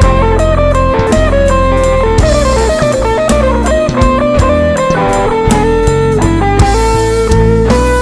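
Band music with no singing: guitar playing a melody of held notes over a drum kit.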